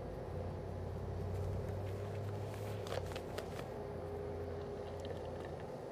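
Rustling of a black nitrile glove being pulled onto a hand, with a few light clicks about three seconds in, over a steady low hum.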